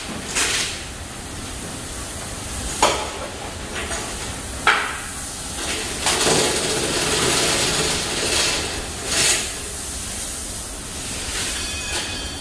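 Clanks and rattles of steel chain and wire parts being handled on a two-post car lift, with four sharp metallic knocks standing out and a longer rattling stretch in the middle, over a steady hiss.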